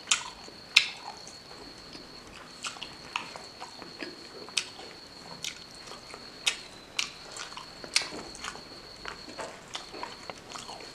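Close-miked chewing of thick-skinned pork: wet mouth clicks and smacks at irregular intervals, about one or two a second, with a faint steady high-pitched whine behind.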